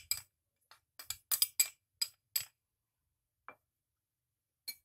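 Metal cutlery clinking against a glass mixing bowl while gram flour is knocked and scraped into it: a quick run of about eight sharp clinks in the first couple of seconds, then two single taps further apart.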